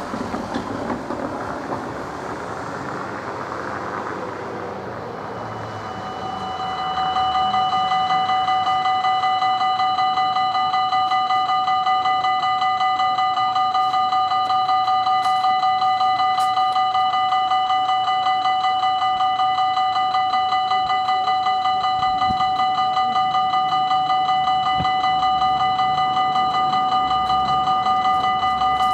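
Belgian level-crossing warning bell: an electronic ringing of several stacked tones with a fast, even pulse, starting about six seconds in and cutting off near the end as the barriers come down, warning of an approaching train. Before it starts, a car drives over the crossing's brick road.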